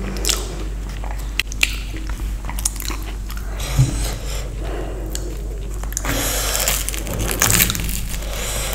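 A person chewing and biting into crisp fried Indian street snacks, close to the microphone, with many short crunches and two louder bursts of chewing near the end.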